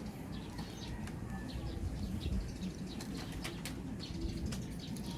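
Birds chirping, with pigeons or doves cooing in the background, over a low steady background and a few light clicks.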